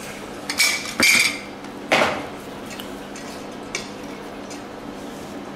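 Thin stainless steel and brass plates clanking as they are handled and set down: a few sharp metallic clanks in the first two seconds, one ringing briefly, then a lighter clink near four seconds.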